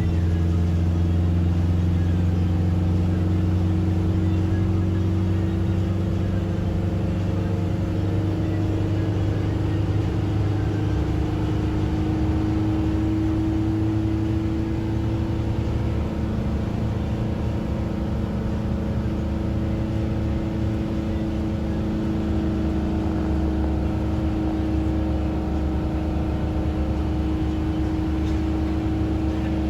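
Vehicle engine and road noise heard from inside the cabin while driving: a steady low hum whose pitch drifts slowly.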